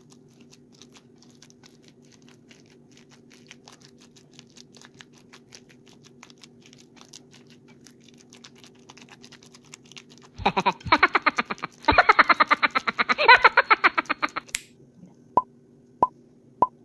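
Wire whisk mashing ripe bananas in a glass bowl. It starts with faint soft clicks, then about four seconds of fast, loud strokes scraping and clattering against the glass. Near the end come a few sharp ringing clinks on the bowl, evenly spaced about half a second apart, over a steady low hum.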